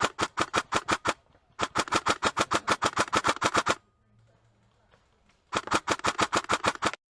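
Airsoft guns firing on full auto in three bursts of rapid shots, about ten a second. The longest burst, in the middle, lasts about two seconds.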